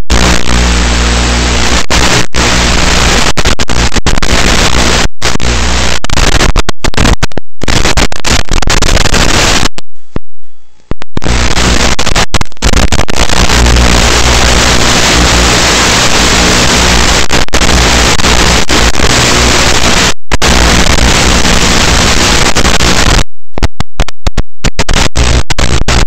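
Loud steady hiss of static with a low buzz underneath, typical of the audio channel of an analog FPV video downlink. It is broken by short dropouts, the longest lasting about a second about ten seconds in, with several more near the end.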